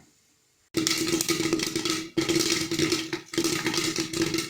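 Corn kernels popping thick and fast in hot oil inside a covered pressure cooker, a dense crackle of pops with a steady hum underneath. It starts about two-thirds of a second in, after near silence.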